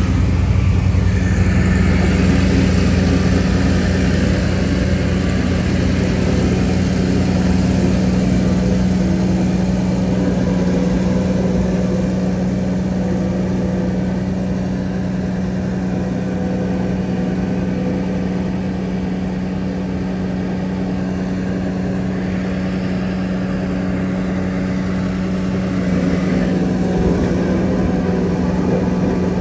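Heavy diesel engine of a construction machine running steadily with a deep, even drone, easing off slightly in the middle and picking up again near the end.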